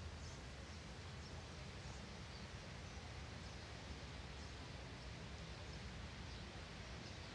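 Quiet outdoor ambience: a faint steady hiss with a few faint high chirps scattered through it.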